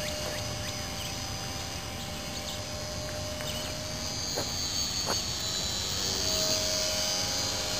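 Electric motor and propeller of a Carl Goldberg Husky 400 radio-controlled park-flyer plane whining in flight, the high whine growing louder in the second half.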